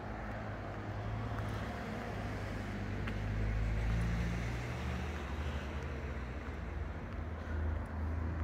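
Street traffic: cars running and passing by, a steady low engine hum that swells about four seconds in.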